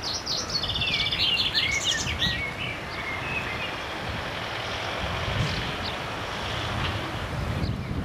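A small songbird singing a quick run of high chirps and trills in the first three seconds, over a steady outdoor background noise with low rumbles.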